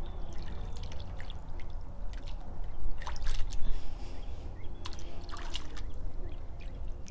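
Water splashing and trickling off a magnet-fishing magnet and its rope as it is worked at the surface, in scattered short splashes that are thickest about three seconds in and again around five seconds. A steady low rumble runs underneath.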